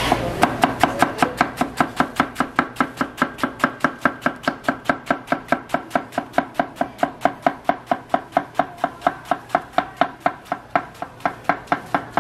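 Large kitchen knife finely shredding half a head of cabbage on a wooden cutting board. The chopping is rapid and even, about six knife strikes a second on the board, and starts about half a second in.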